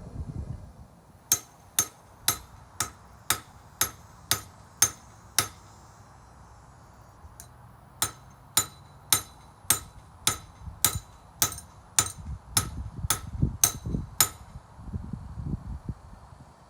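Blacksmith's hammer striking hot iron on an anvil while hand-forging a nail, about two blows a second in two runs with a pause between, each blow giving a bright ring.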